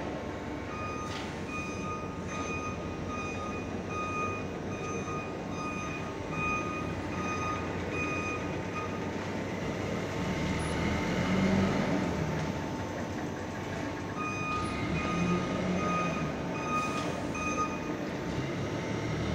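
Carpet emboss printing machine running with a steady mechanical noise and hum. Over it, an electronic beeper sounds in a regular string of short high beeps, stops about nine seconds in, and starts again about fourteen seconds in for a few seconds.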